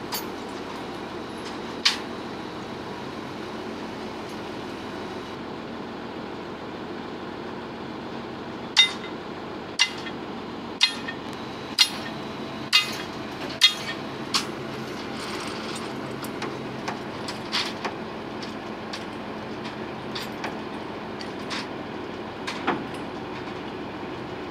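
A mobile crane's engine running steadily, with sharp metallic clanks of steel on steel as the rebar load is rigged: six hard clanks about a second apart in the middle, and lighter scattered clinks before and after.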